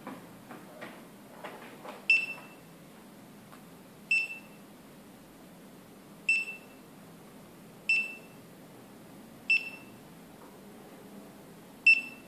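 Smartphone barcode-scanner app beeping through the phone's speaker: six short, high beeps about two seconds apart, each one signalling a successful PDF417 barcode scan. A few faint clicks come before the first beep.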